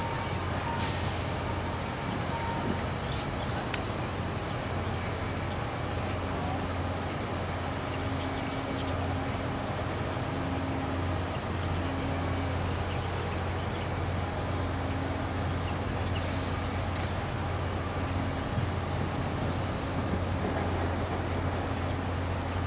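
Steady low engine drone of a large container ship and its pilot boat under way, over a constant rush of noise, with a faint higher hum that comes and goes.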